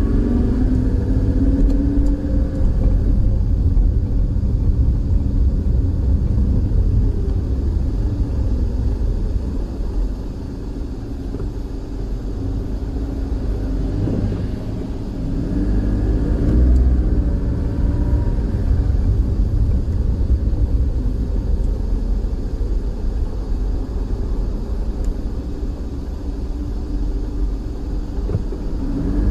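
A car driving: a steady low rumble of engine and road noise, with the engine's pitch rising as it speeds up near the start and again about halfway through.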